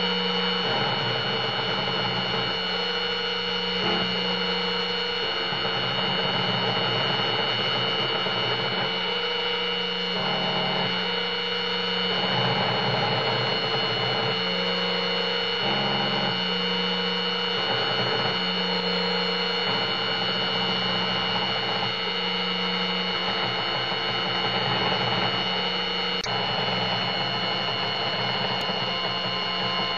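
Small CNC milling machine routing a copper-clad circuit board with an engraving bit: the spindle runs with a steady high whine, while the axis motors hum underneath in tones that change every second or two as the machine moves from one cut to the next.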